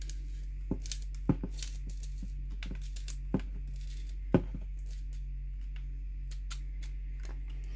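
Tongue-and-groove pliers gripping and turning the threaded PVC end cap of a charcoal vent-filter housing to snug it down: scattered small clicks and creaks of metal jaws on plastic, with a few sharper knocks in the first half. A steady low hum runs underneath.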